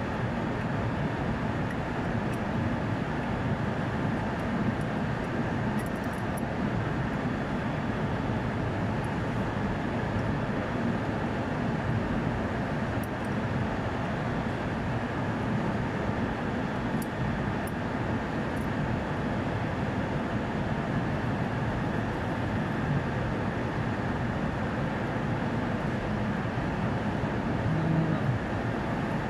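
Steady drone of running air-conditioning plant machinery, even and unchanging, with a few faint light ticks from hand work on the unit.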